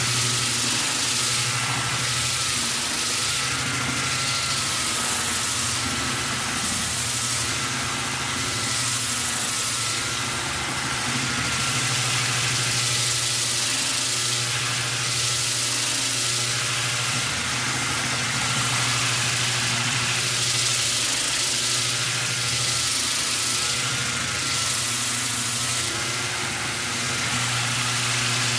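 Makita rotary sander/polisher running steadily, its 40-grit disc on an oversized foam pad grinding across walnut end grain to level a cutting board. The motor hum holds a constant pitch, and the level swells gently as the pad is moved over the board.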